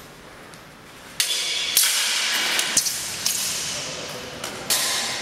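Clatter of steel swords and armour as two armoured fighters close and grapple. A burst of metallic clashes starts suddenly about a second in, with several sharp strikes over the next few seconds.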